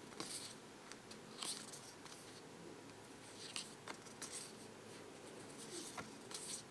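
Tarot cards sliding against one another as they are moved through the hand one at a time: several faint, papery swishes with small clicks, roughly one every second.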